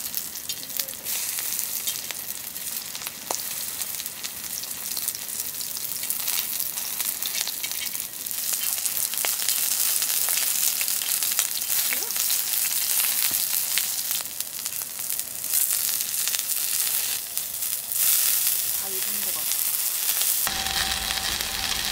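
Food frying in a hot pan: a loud, steady sizzle with many small pops and crackles.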